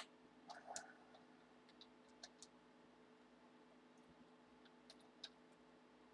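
Near silence: room tone with a faint steady hum and a few faint, short clicks, the sharpest right at the start and a small cluster about half a second to a second in.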